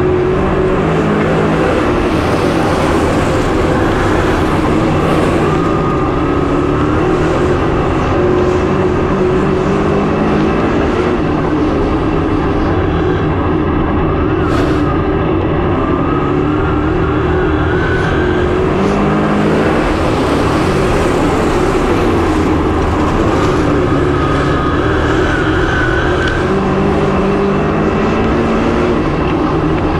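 Dirt late model race car V8 engines running hard on a dirt oval, their pitch repeatedly climbing and dropping as the cars throttle up and back off.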